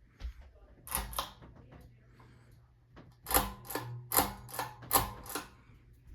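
Ceiling fan switch clicking: sharp clicks in pairs, one pair about a second in and three quick pairs in the second half, over a steady low hum.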